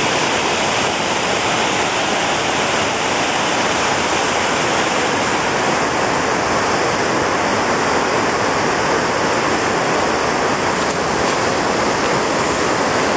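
Loud, steady rushing of the Shyok River in flood, a wide silt-laden torrent running at full force.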